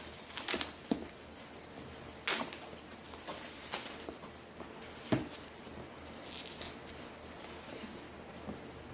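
Clear plastic wrapping crinkling and rustling as it is peeled off a leather handbag strap, in irregular sharp crackles and swishes.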